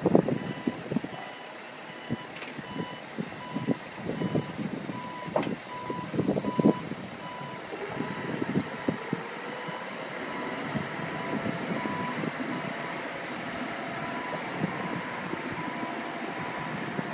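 A boat lift lowering a boat, with an electronic warning beeper repeating a steady beep throughout. Irregular knocks and clanks sound in the first half, and a steady mechanical hum follows.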